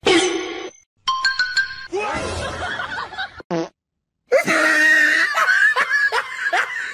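A string of short, separate sound snippets, then from about four seconds in a person laughing in quick repeated bursts.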